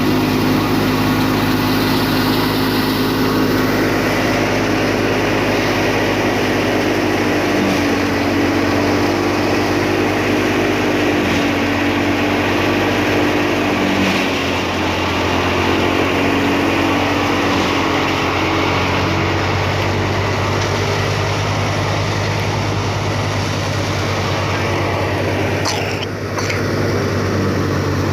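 Wheat threshing machine running steadily, with a constant engine drone. About 26 seconds in, the level dips briefly.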